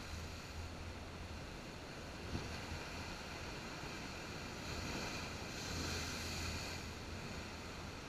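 Sea waves breaking and washing over shore rocks, the surf swelling louder and hissier from about five to seven seconds in, over a low rumble of wind on the microphone. A single brief knock a little over two seconds in.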